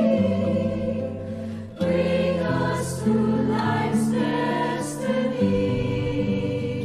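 Background music: a choir singing a slow hymn in long held notes, with a short break between phrases about two seconds in.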